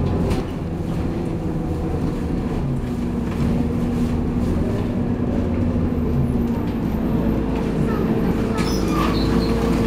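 Scania K230UB city bus's diesel engine and drivetrain running as the bus drives along, a steady drone heard from inside the passenger cabin, with a few short clicks and rattles near the end.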